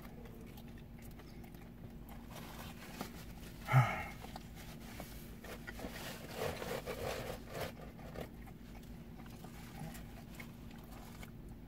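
People eating pizza: chewing and mouth noises, with a paper napkin rustling as hands are wiped, and one short vocal noise about four seconds in, over a faint steady hum.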